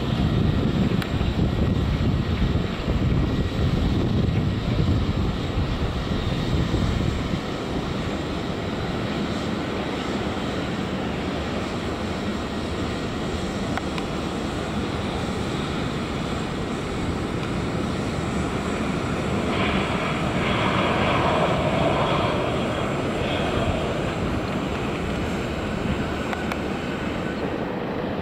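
Airbus A321-231 airliner's twin IAE V2500 turbofan engines at climb thrust just after takeoff, a continuous jet rumble from an aircraft passing overhead.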